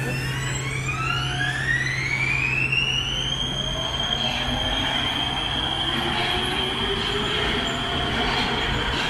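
Prague Metro M1 train pulling away from the platform. Its electric traction whine rises in pitch for about three and a half seconds as it speeds up, then holds steady, over the rumble of the wheels on the track.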